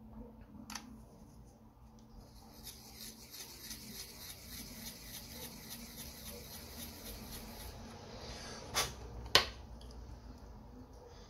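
A pencil being sharpened: a rhythmic rasping scrape, about four strokes a second, for several seconds. Then two sharp clicks in quick succession, the second the loudest.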